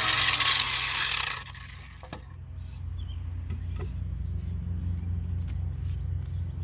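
Grinder with a flap disc sanding a wooden hammer handle, a loud even grinding hiss that cuts off suddenly about a second and a half in. After it comes a low steady hum with a few light knocks.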